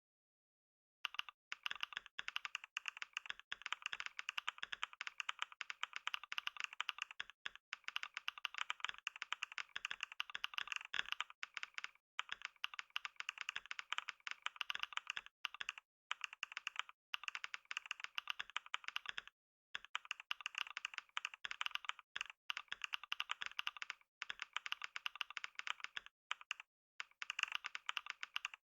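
Computer keyboard typed on fast and continuously during a typing test, at about 89 words per minute: a dense run of rapid keystroke clicks. It starts about a second in and has a few brief pauses.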